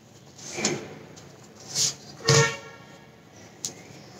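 Hands rubbing and scraping dry wheat flour mixed with ghee against a stainless-steel bowl, in several short rustling surges. A brief pitched sound comes a little past halfway, and a sharp click near the end.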